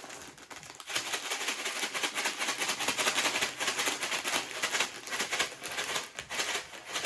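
Crushed dry instant noodle snack rattling inside its bag as it is shaken with its seasoning: a dense, rapid crackle that starts about a second in.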